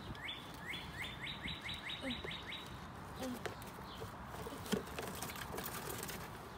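A bird singing a run of about ten quick rising whistled notes that come closer together, ending about two and a half seconds in. A single sharp knock follows a little after halfway.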